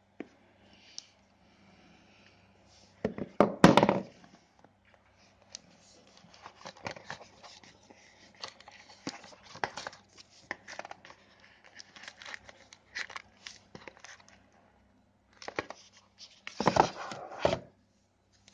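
Smartphone's cardboard retail box and packaging being handled close to the microphone: scattered rustles, scrapes and light taps, with two louder spells of crinkling or tearing, one a few seconds in and one near the end.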